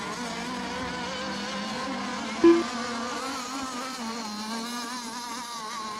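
Several radio-controlled racing boats' small engines buzzing over the water, their pitch wavering as they circle during the milling period before a race start. About two and a half seconds in, a short, loud, flat tone sounds once.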